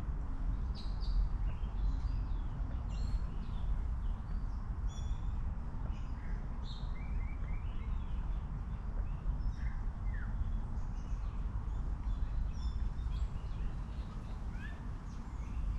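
Small birds chirping in many short, scattered calls over a steady low rumble.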